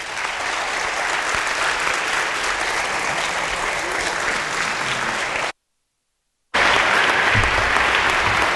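Audience applauding steadily, with some people standing. The applause cuts out completely for about a second just past the middle, then resumes.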